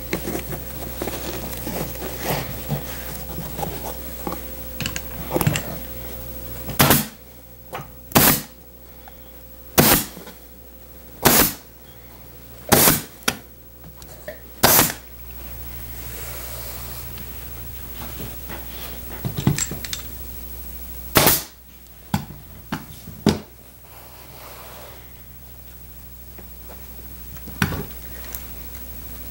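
Pneumatic upholstery staple gun firing staples through fabric into a wooden chair frame: a run of six sharp shots about a second and a half apart, then after a pause several more, spaced out, near the end.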